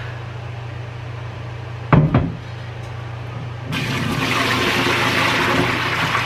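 Water being poured out of a slow cooker's ceramic crock into a kitchen sink, a steady splashing rush that starts a little past halfway. Before it, about two seconds in, come a couple of knocks as the crock is lifted out of the cooker. A steady low hum runs underneath.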